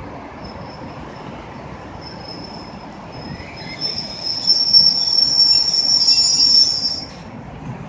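ED4M electric multiple unit braking to a stop, its brakes giving a high-pitched squeal over the low rumble of the train. The squeal grows loudest in the last few seconds and cuts off about seven seconds in as the train comes to a halt.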